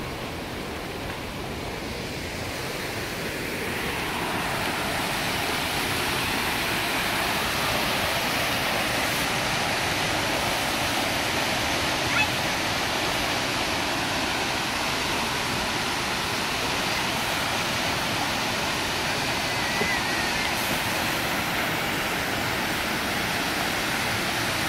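Presque Isle River rapids and small falls pouring over rock ledges: a steady rush of white water that grows louder over the first few seconds and then holds level.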